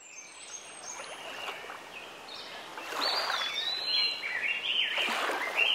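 Soundtrack intro fading in: a soft hiss with many short, high chirping glides rising and falling, swelling steadily louder.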